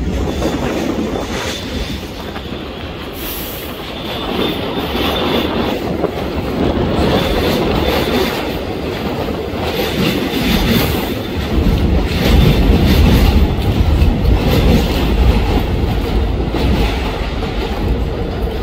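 Subway train running on elevated track, a steady rumble with wheels clacking over rail joints. A thin, high wheel squeal comes and goes as it takes a curve.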